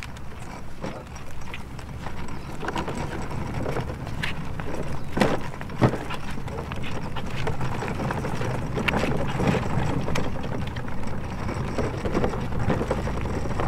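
Plastic wheels of a Little Tikes Princess Carriage ride-on toy rolling over a concrete sidewalk as it is pushed, making a steady rumble. Two sharp plastic knocks come a little past the middle.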